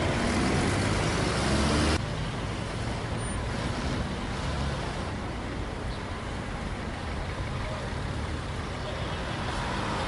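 Steady road-traffic noise, a continuous wash of passing vehicles. It drops to a lower level suddenly about two seconds in.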